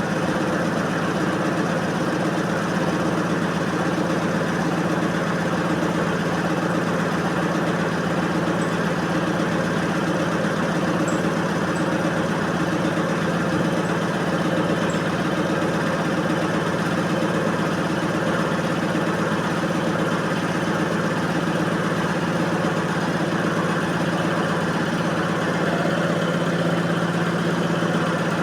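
Electrolux 15 kg commercial washing machine running, a steady motor hum with an even whir that does not change in pitch or loudness.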